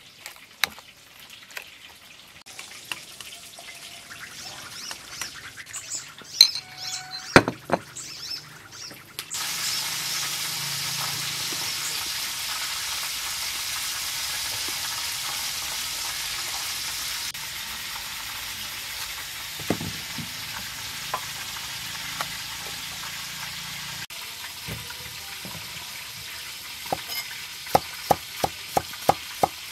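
A metal spoon scraping and clinking in a ceramic bowl as a tamarind fish sauce is stirred. About nine seconds in, a steady sizzle of hot frying oil takes over. Near the end a knife chops through cucumber onto a wooden board, about two to three cuts a second.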